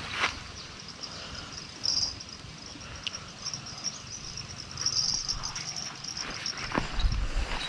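Insects chirring in a steady high-pitched band that swells louder about two seconds in and again around five seconds, with a few scattered soft clicks.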